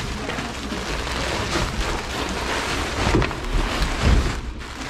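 Black plastic-jacketed insulated flex duct rustling and crinkling as it is handled and dragged through wooden roof trusses, with two dull thumps about three and four seconds in.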